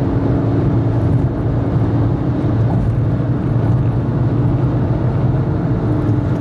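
Volkswagen Golf V 1.6 FSI's four-cylinder petrol engine droning steadily at about 3,200 rpm at high speed, around 160 km/h, heard inside the cabin over a steady rush of wind and road noise.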